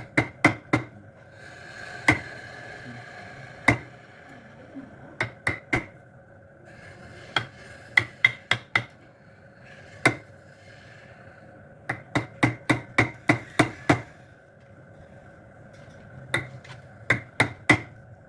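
Hammer blows on wood, single knocks and quick runs of three to eight at about three a second, over a steady hum with short stretches of hiss.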